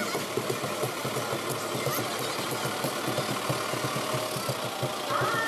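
Diesel farm tractor engine running at low speed as the tractor rolls slowly past, with a steady, even clatter.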